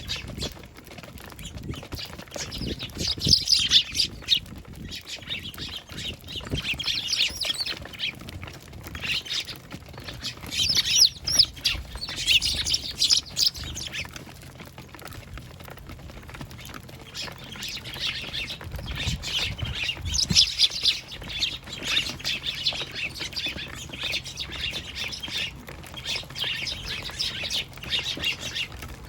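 Eurasian tree sparrows chirping in several bouts of rapid, overlapping chirps, with a few low thumps.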